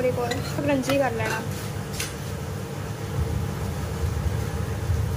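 A few words from a person's voice, then a steady low hum with a faint even hiss as two slices of bread fry in oil in a pan. There is one short click about two seconds in.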